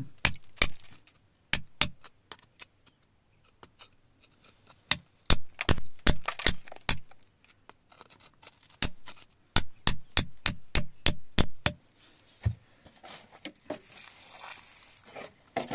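A steel pick tip tapping and scraping against rock and gravel around an embedded agate nodule, in irregular clusters of sharp clicks and knocks. Near the end water splashes over the stone for a second or two with a hissing rush.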